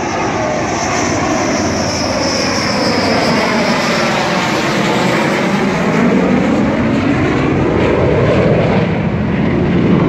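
Dassault Rafale fighter jet passing overhead, the loud noise of its twin M88 turbofan engines swelling and sweeping down and back up in pitch as it goes by.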